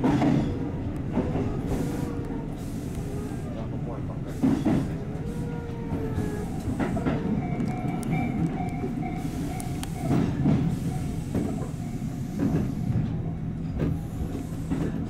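Tobu 8000 series electric train running, heard from on board: a steady low hum with motor whine tones that shift in pitch, and a few knocks from the running gear, the loudest about four and a half seconds in and again about ten seconds in.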